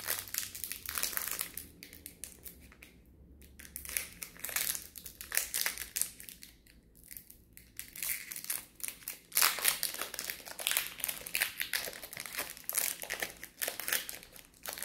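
Pokémon TCG booster pack's foil wrapper crinkling and crackling as it is handled and opened, in irregular bursts with a couple of quieter pauses.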